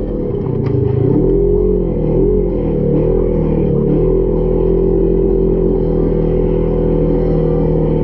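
UTV engine revving, its pitch rising and falling several times over the first few seconds, then holding fairly steady, with music playing alongside.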